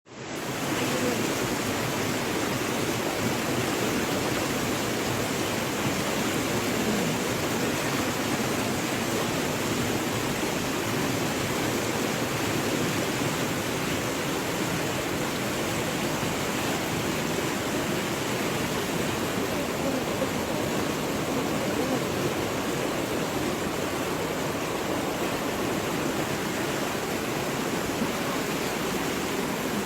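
Steady, unbroken rushing of fast-flowing floodwater.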